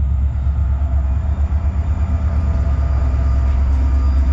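Diesel locomotive rolling slowly across a steel truss bridge overhead, its engine a deep, steady rumble with faint steady tones above it.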